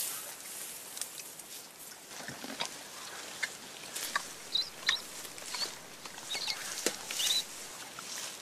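Scattered snaps and crackles of vegetation in the forest, with a few short high chirps from about four seconds in.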